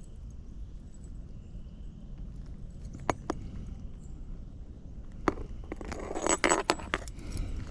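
Fishing tackle clinking and rattling as it is rummaged through to find a lure: a few single sharp clicks, then a busy run of clinks and rattles near the end.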